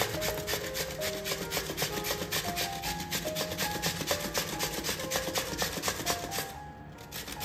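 Peeled mooli (white radish) being grated on the medium holes of a stainless steel box grater, a rhythmic rasping of about four to five strokes a second. The strokes pause briefly near the end.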